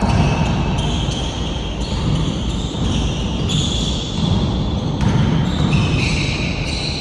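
A basketball bouncing on a court, amid the general noise of a game.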